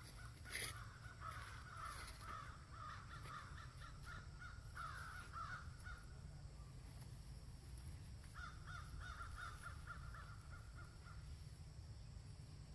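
Baby monkey giving rapid, repeated harsh cries in two runs, the second starting about eight seconds in.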